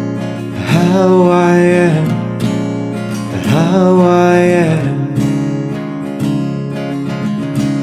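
Song intro on strummed acoustic guitar, with two long held melodic notes over it, each sliding up in pitch as it begins.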